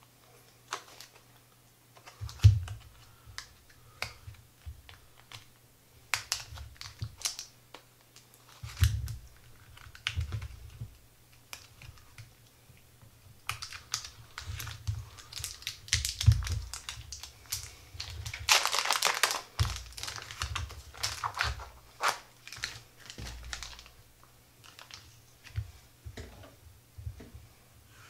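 Plastic packaging of sliced pork parizer being picked at and pulled open by hand: irregular crinkling clicks and rustles, with a longer tearing rustle about two-thirds of the way through. A few dull knocks are mixed in.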